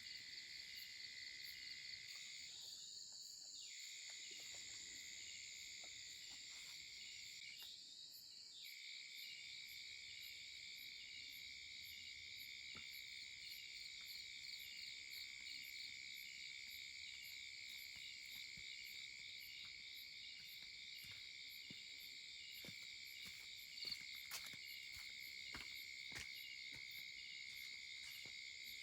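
Faint, steady chorus of insects trilling at a high pitch, with rapid pulsing in the calls. One or two soft clicks come near the end.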